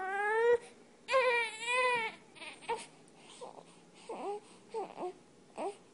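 An infant crying: two long, loud, wavering wails in the first two seconds, then a run of short, quieter whimpering sobs as the crying settles.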